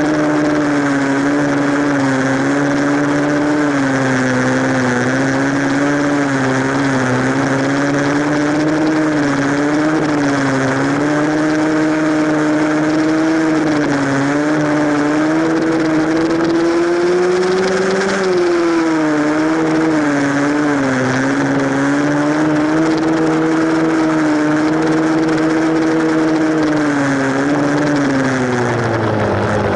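Single-cylinder four-stroke dirt bike engine running under steady throttle while riding, its pitch wavering up and down. It climbs to its highest about eighteen seconds in and drops as the throttle closes near the end, over a steady hiss.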